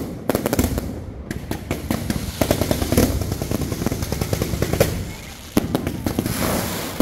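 Fireworks display going off: dense volleys of rapid sharp cracks and pops as fountains and cake batteries fire crackling sparks upward, with a short lull about five seconds in before a loud new volley.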